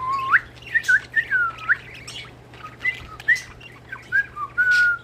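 Pet budgies chirping and whistling: short whistled notes that glide up and down, mixed with brief scratchy chirps.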